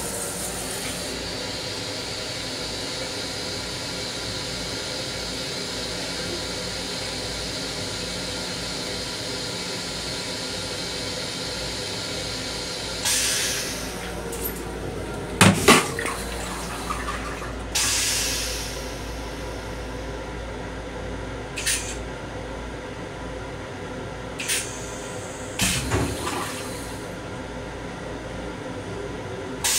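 LIRR M7 railcar toilet flushing: a steady rush of water into the stainless steel bowl for about thirteen seconds, then a series of short loud bursts and knocks, the loudest about halfway through.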